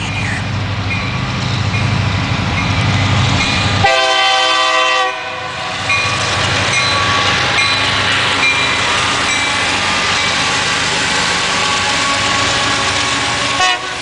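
Union Pacific diesel freight locomotive passing and sounding its multi-note horn in long, repeated blasts, with the low rumble of its diesel engine loud during the first four seconds.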